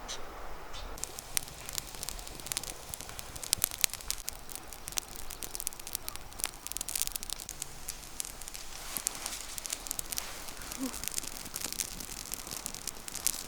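Wood fire crackling, with dense sharp pops and snaps starting about a second in.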